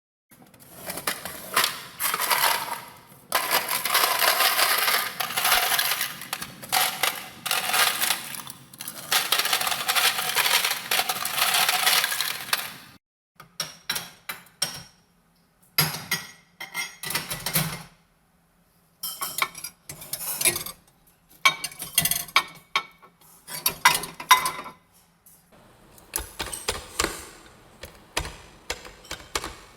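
Kitchen dishes and metal cutlery clattering: a dense run of clinks and rattles for about the first thirteen seconds, then scattered separate clinks and knocks.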